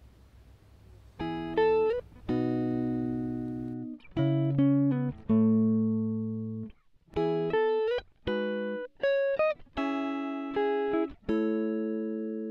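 Background music of plucked guitar notes, one after another, each starting sharply and ringing out as it fades, a few bending slightly in pitch. The notes begin about a second in.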